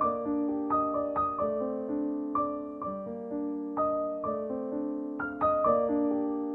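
Gentle piano music: single notes and chords struck about twice a second, each left to ring and fade.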